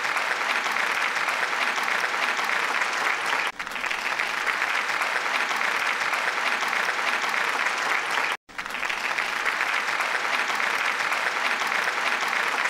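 Steady applause from many hands, with a brief dip about three and a half seconds in and a short break about eight and a half seconds in.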